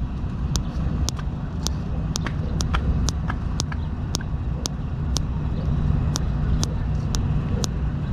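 Sharp clicks repeating fairly evenly, about two a second, over a steady low rumble.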